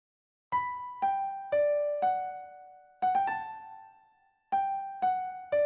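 Solo keyboard music with a piano-like sound: a slow melody of single struck notes, each left to ring and fade, about two a second. Near the middle a quick run of three notes leads to a longer held note, then after a short pause the melody resumes.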